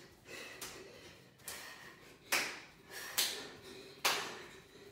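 Sharp hand claps in a steady rhythm, about one a second, from clapping jumping jacks.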